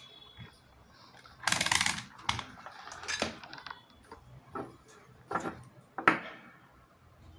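Handling noises on a tabletop: a scraping clatter about one and a half seconds in as a plastic digital multimeter is moved aside, then several sharp clicks and taps as the plastic LED bulb is picked up and handled.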